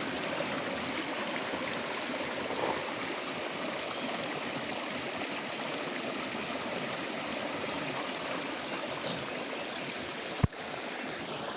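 Hill stream flowing steadily over rocks. There is a single sharp click near the end.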